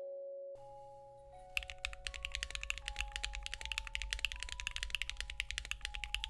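Rapid typing on a mechanical keyboard with Keygeek Higanbana linear switches on an aluminium plate: a dense run of keystrokes that starts about a second and a half in. Soft background music plays throughout.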